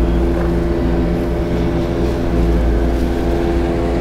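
Small fishing boat's engine running steadily out on the water, a continuous even drone.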